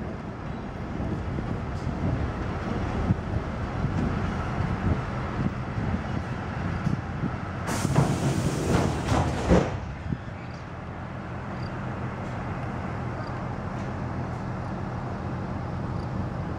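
DR1A diesel multiple unit running, heard from aboard: a steady low rumble of engine and wheels on the rails as it rolls through the station. About eight seconds in, a loud rush of hiss lasts roughly two seconds.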